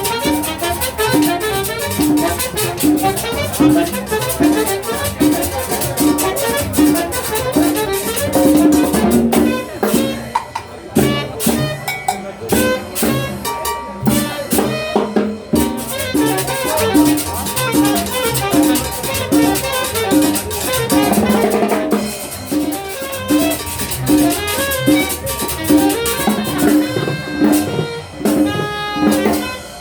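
Music with a drum kit keeping a steady beat, with brass, thinning out for a few seconds about a third of the way in.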